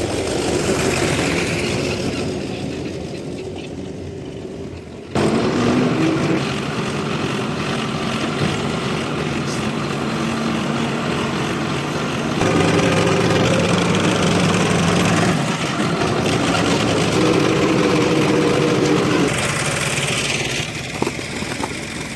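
Hyundai hydraulic excavator's diesel engine running under working load, its engine note shifting as the machine works. The sound changes abruptly and gets louder about five seconds in, and again about twelve seconds in.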